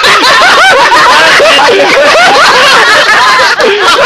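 A group of people laughing and shouting loudly, many voices over one another without a break.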